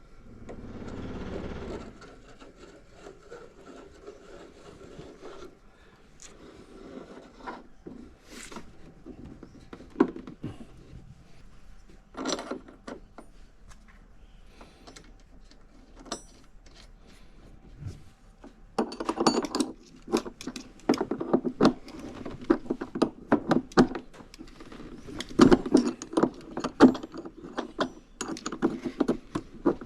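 Hands working on small hard parts and tools at a workbench: scraping, rubbing and scattered knocks, turning into busy clicking and rattling about two-thirds of the way through.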